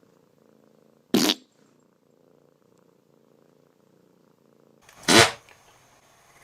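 A cat purring faintly and steadily, broken twice by a short, loud burst of noise: once about a second in and again, louder and a little longer, about five seconds in.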